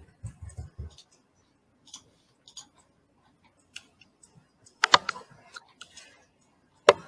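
Scattered clicks and taps at a computer keyboard and mouse, with a few low thumps in the first second and the loudest clicks about five seconds in and near the end.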